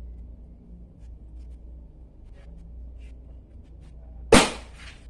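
A hardcover book dropped from standing height on a chair lands flat on a hard tiled floor about four seconds in: one sharp, loud smack with a short tail. A faint steady low hum lies underneath.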